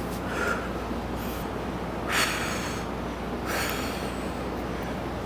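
A man's short, hard breaths out through the nose and mouth, three in a few seconds with the second the loudest, as he holds flexing poses after a back workout. A steady low hum sits underneath.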